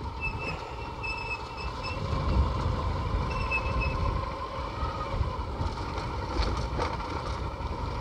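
Two-wheeler riding slowly along a dirt track: a low, steady rumble of engine and wind. A faint high chirping comes and goes twice in the first few seconds.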